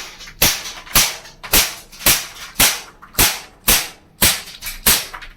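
Walther PPK/S CO2 blowback BB pistol firing rapidly, about nine sharp shots roughly two a second, the slide blowing back with each shot.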